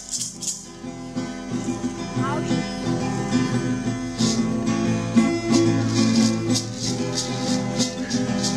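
Acoustic music: a guitar playing, with a shaker keeping a steady beat.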